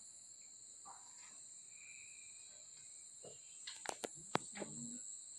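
Steady, high-pitched drone of insects in forest, holding two even high tones. About four seconds in, a few sharp clicks sound over it.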